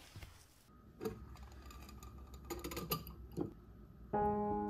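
A few light metallic clicks and taps from handling tools at a workbench, then gentle piano music starts near the end with held notes.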